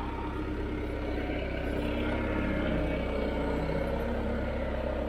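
Bobcat 853 skid steer engine running steadily at idle.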